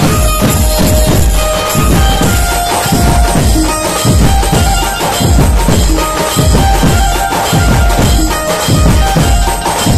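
Dhumal band playing live: dhols and big barrel drums beating a fast, dense rhythm under a held melody line that steps from note to note, loud and unbroken.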